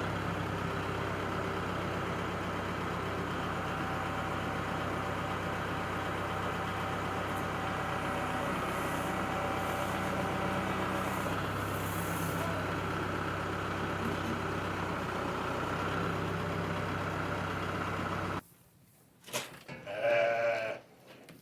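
A vehicle engine running steadily, with sheep bleating over it. The engine sound cuts off suddenly near the end, and a short animal call follows.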